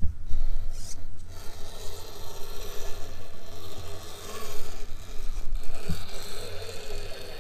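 Scale RC trial truck's electric drivetrain running at crawling speed as it creeps down a loose dirt slope, its tyres working through the soil.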